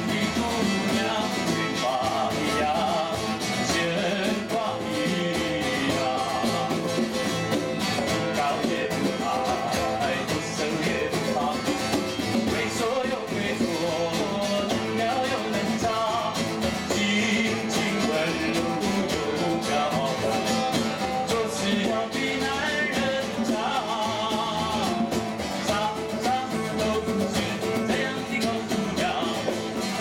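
Live acoustic guitar strumming with voices singing an Indigenous Taiwanese tribal pop song, played as an unrehearsed jam.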